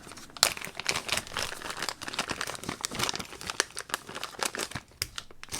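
Packing material crinkling and rustling as items from a package are handled, a dense run of irregular crackles.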